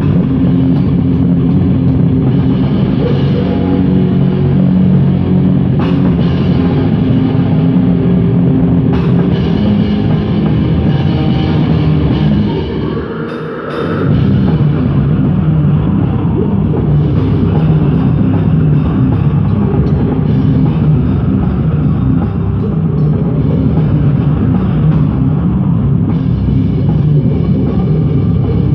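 Heavy metal band music led by a drum kit, with bass drum and cymbals under pitched instruments. The music drops out briefly about halfway through, then comes back in at full level.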